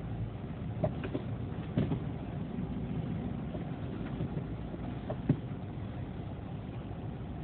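Vehicle driving, with steady low engine and road rumble as picked up by a dashcam microphone. A few short knocks or rattles come through about a second in, near two seconds in and past five seconds in.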